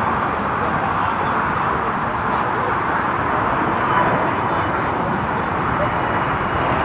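Steady roar of jet airliner engines at an airport, with a faint high whine coming in about four seconds in.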